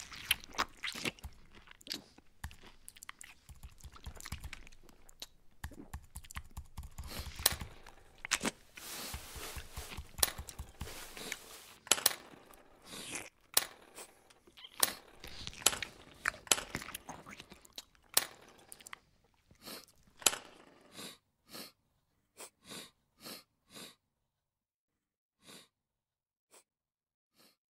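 Close-up nasal sniffling, over and over: dense, wet and crackly for most of the run, then thinning to single short sniffs about a second apart near the end.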